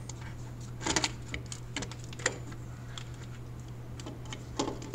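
Scattered clicks and light knocks of hands working harness clips and metal parts loose around a truck's starter motor, a small cluster about a second in and single knocks near the middle and end, over a steady low hum.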